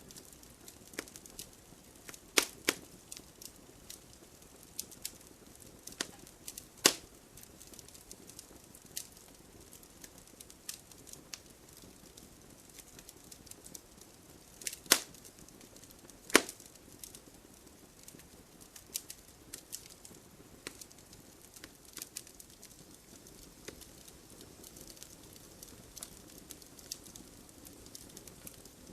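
Wood fire crackling: a faint steady hiss with scattered sharp pops and snaps. The loudest pops come a few seconds in and again about halfway through.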